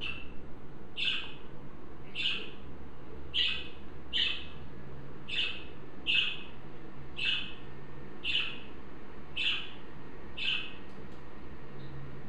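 A budgerigar calling: a string of about eleven short, high chirps, roughly one a second.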